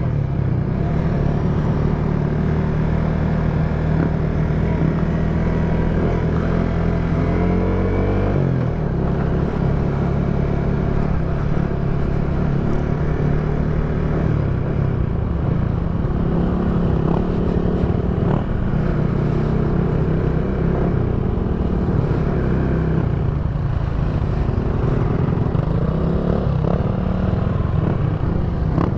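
Motorcycle engine running under way on a trail ride, its pitch climbing and dropping back with the throttle about seven seconds in and again near the end.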